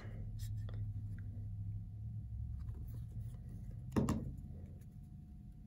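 Quiet handling of a paper cut-out and a squeeze bottle of white school glue, a few faint small clicks over a steady low hum, with one short louder noise about four seconds in.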